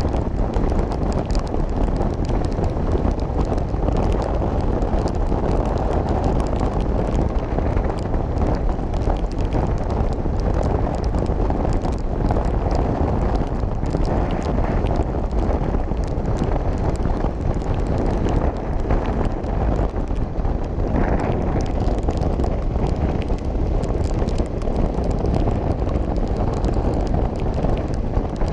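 Steady wind rush over the microphone of a motorcycle ridden at highway speed on a wet road, with the bike's running and road noise beneath it.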